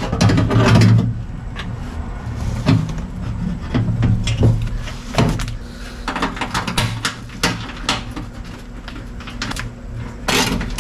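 Scattered knocks, clicks and clatter of bolts and hand tools against sheet metal as a car's battery tray is bolted back in at the inner fender. A steady low hum runs underneath at times.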